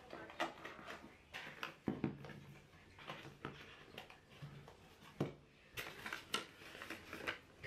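Cardboard mailer box being folded and closed by hand: a string of sharp clicks, taps and knocks as the flaps are creased, tucked in and pressed shut, then a roll of water-activated paper tape handled and a length pulled off near the end.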